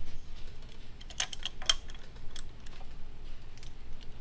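Scattered light clicks and taps of hand tools and metal parts being handled while working the thermostat housing loose on a Yamaha F225 outboard, with a cluster of sharper clicks a little over a second in.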